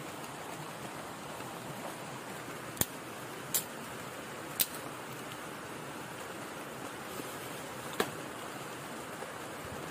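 Steady hiss of rain falling on an umbrella and foliage. Four sharp clicks or snaps cut through it, three between about three and five seconds in and one near eight seconds.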